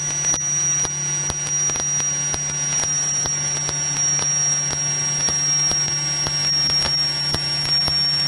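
Steady drone and hiss of a light aircraft in cruise heard through its headset intercom audio feed, with a thin high whine above it and faint, evenly repeated ticks.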